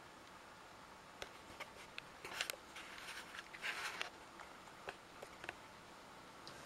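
Faint handling noise: scattered small clicks and scratchy rustling, with two louder rustles about two and a half and four seconds in, over a faint steady background hiss.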